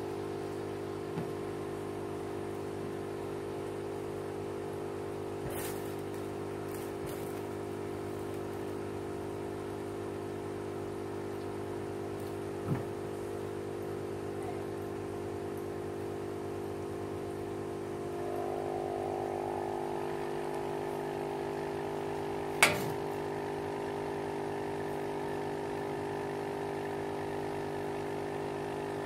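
Small submersible aquarium filter pump humming steadily, a steady motor tone with a brighter overtone joining about two-thirds of the way in. A few faint taps, with one sharper tap about three-quarters of the way through.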